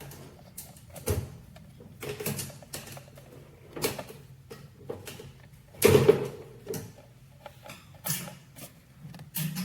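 A series of irregular clicks and knocks, the loudest about six seconds in.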